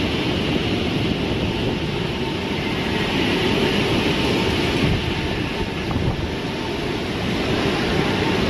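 Hurricane wind buffeting the microphone, with driving rain and floodwater rushing through a flooded street: a loud, steady rumble and hiss that does not let up.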